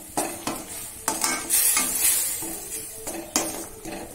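A perforated stainless steel ladle stirs and scrapes a tomato-onion masala in a steel kadai, clinking on the metal several times a second, over a steady sizzle. The masala is frying with its spice powders so that the raw smell cooks off.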